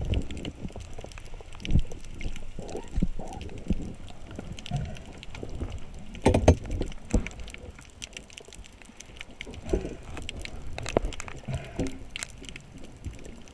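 Water noise with scattered clicks and dull knocks, the loudest cluster about six seconds in.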